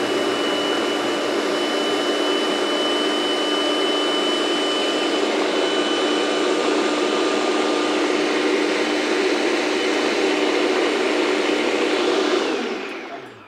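Small electric blender with its motor unit on top, running steadily at one speed as it purées a green tomatillo and serrano pepper sauce, then winding down to a stop near the end.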